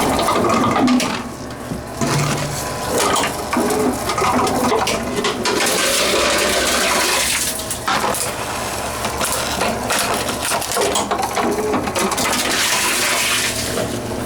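Tomra TX2 reverse vending machine processing plastic bottles: continuous rattling, clattering and crinkling of the bottles in the machine over a steady low hum.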